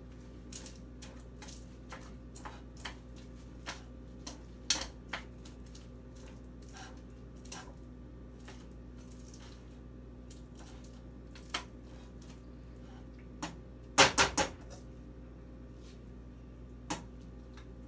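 Sparse, irregular light clicks and taps of kitchen utensils against cookware at the stove, with three quick louder knocks about two-thirds of the way through, over a low steady hum.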